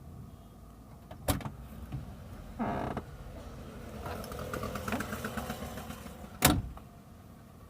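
A metal table-top pencil sharpener is clamped to a table. There are two sharp knocks of metal on the tabletop, about a second in and near the end. In between, the clamp fixture creaks in short rapid runs as it is tightened.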